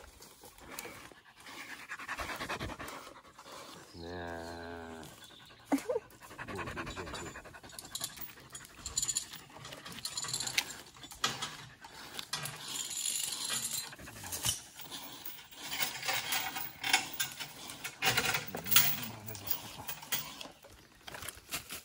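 Large black dog panting close by, with scattered short knocks and rustles.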